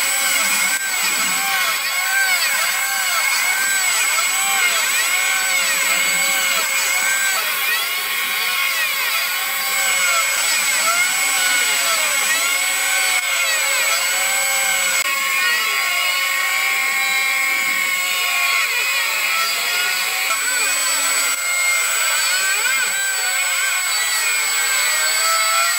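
CNC milling machine cutting an aluminium cylinder-head blank with an end mill: the spindle runs with a steady whine while the axis drive motors rise and fall in pitch about once a second as the cutter traces the round combustion chamber, the sweeps growing longer and slower about halfway through.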